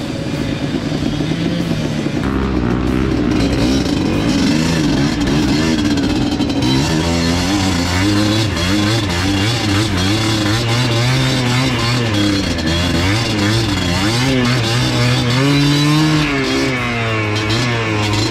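Enduro motorcycle engine revving up and down over and over, its pitch rising and falling as the throttle is worked.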